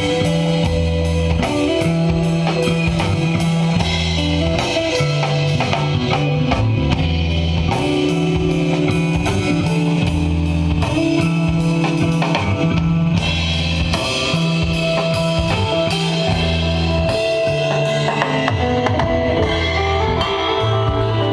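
Live instrumental desert rock jam: a full drum kit with busy cymbals and bass drum, a bass line stepping between a few low held notes, and sustained guitar.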